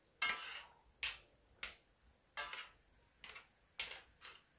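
A spoon knocking and scraping against the side of a stainless steel pot while stirring soup: about seven short, sharp clinks at uneven intervals, the first with a brief ring.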